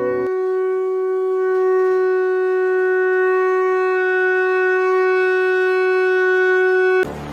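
Conch shell (shankh) blown in one long, steady note held for about seven seconds, ending abruptly near the end.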